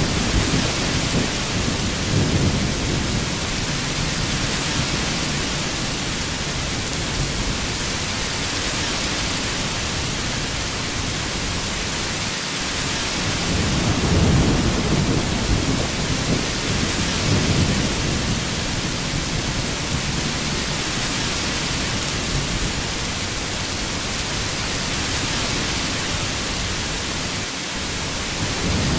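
Heavy rain falling steadily, with low thunder rumbling at the start, again for several seconds around the middle, and once more at the end.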